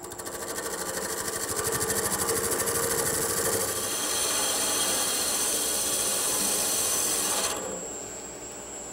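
Wood lathe spinning a blank at about 600 rpm while a gouge, held sideways on the tool rest, shear-cuts it: a fast, even rasping hiss of shavings peeling off with each turn of the wood. This is a shear cut, which leaves a smoother surface than scraping. The cutting stops near the end, leaving only the lathe running, much quieter.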